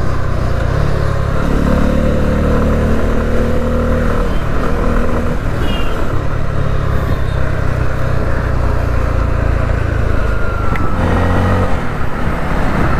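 Bajaj Pulsar F250's single-cylinder engine running under way, its pitch rising and falling several times with the throttle, over steady wind noise.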